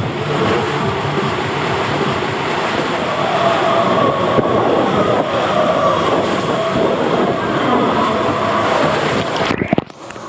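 Water rushing and a rider sliding fast through an enclosed plastic tube water slide, a loud, dense rush that drops away abruptly near the end.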